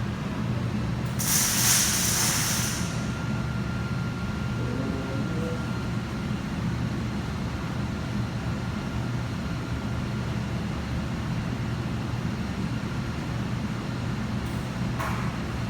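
Steady low machine hum, with a loud burst of hissing about a second in that lasts a second and a half.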